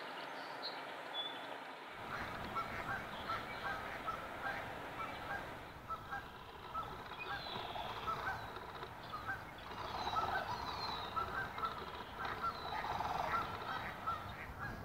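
A flock of Canada geese honking, many short calls overlapping at an uneven rate over a low steady rumble. The honking starts about two seconds in.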